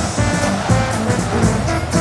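Dramatic cartoon soundtrack music with a heavy, pulsing low end.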